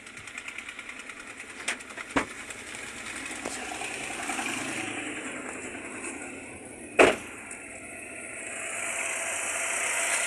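Chevrolet Sail petrol engine idling with a misfire, the fault the check-engine light is blinking for, later traced to cylinder 1. A couple of clicks come around two seconds in, and a single sharp, loud clunk about seven seconds in.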